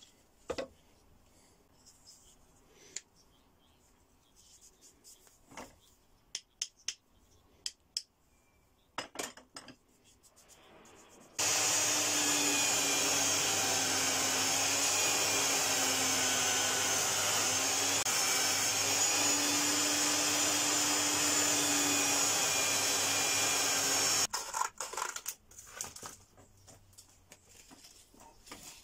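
A belt sander runs for about 13 s in the middle, starting and stopping abruptly, its motor tone dipping a few times as a resin-and-wood burl handle scale is ground against the belt. Before and after it, light scattered taps and clicks of the knife and handle scales being handled.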